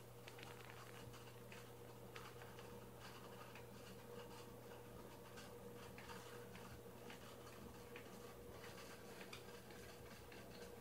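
Near silence: a faint steady hum with scattered faint irregular ticks.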